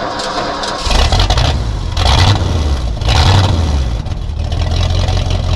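An engine running under varying load, rising and falling in level several times.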